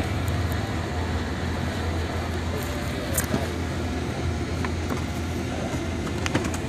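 A vehicle engine running steadily at idle, a low hum, with a few light clicks.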